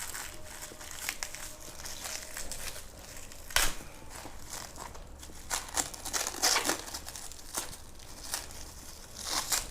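Packing wrap being crinkled and pulled apart by hand in irregular rustles, with a sharp, loud crackle about three and a half seconds in and more near the end.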